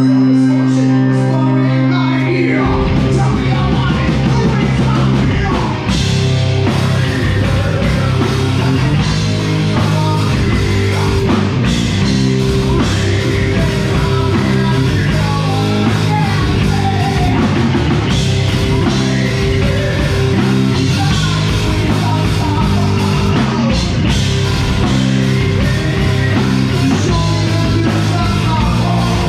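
Live heavy metal band playing loud: distorted electric guitars, bass and a drum kit, with a singer. A chord rings out at first, and the full band with drums comes in about two and a half seconds in.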